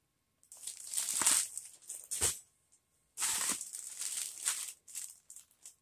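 Clear plastic packaging crinkling and rustling in two spells as bagged items are handled, with a light knock about two seconds in.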